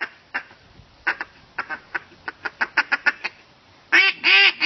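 A duck call being blown: a quick run of short, quieter clucks over the first three seconds, then loud, drawn-out quacks starting about four seconds in.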